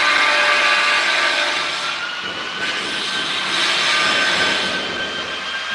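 A machine running steadily, a high whine of several thin tones over a constant hiss.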